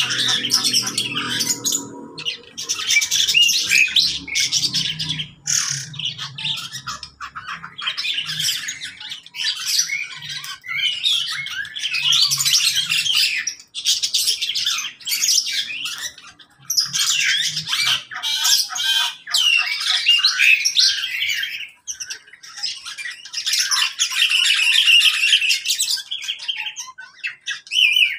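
Mixed aviary flock of lovebirds, budgerigars and other small cage birds chattering: a dense mix of shrill squawks and chirps with a few brief lulls.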